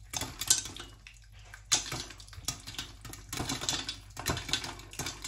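Popcorn kernels popping in hot oil in a covered pot, in full swing: a quick, irregular run of sharp pops over a faint sizzle.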